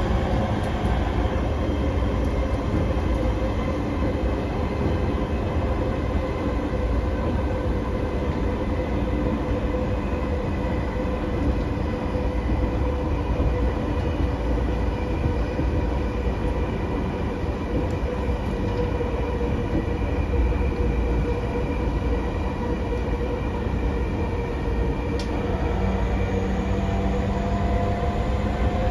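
E231 series 0 commuter train running at speed, heard from inside the passenger car: a steady low rumble of wheels on the rails with a steady whine over it. A second tone joins and rises slightly near the end.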